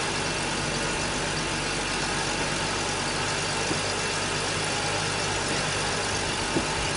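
2000 Ford Taurus V6 engine idling steadily, with a light click near the end.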